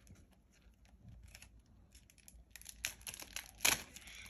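Thin plastic treat bag crinkling and crackling in a child's hands as it is pulled open, the crackles coming thicker in the second half, the loudest about three and a half seconds in.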